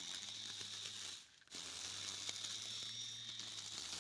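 Homemade lawn mower running, its spinning blade tearing and crunching through grass over a steady low hum, with a short dropout about a second in.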